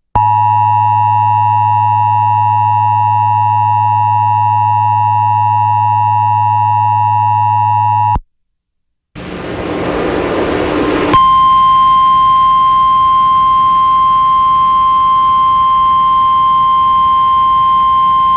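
Emergency Alert System attention signal: a loud, steady, buzzy two-tone alarm that cuts off after about eight seconds. After a second of silence comes about two seconds of radio static hiss. Then a single steady weather-radio alert tone sounds over the static.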